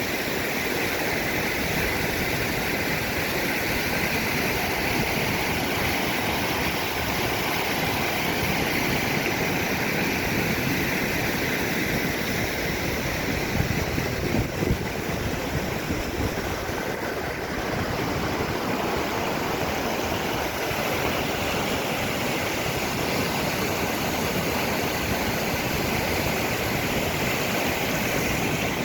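Large waterfall pouring, a steady, unbroken rush of falling water, with a few brief bumps about halfway through.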